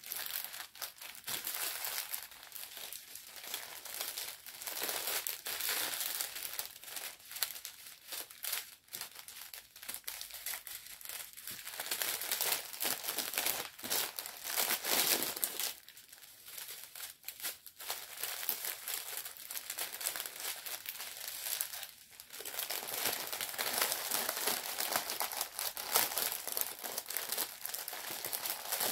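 Thin plastic packaging of a diamond painting kit crinkling as it is handled and folded, in irregular rustles with a couple of short lulls.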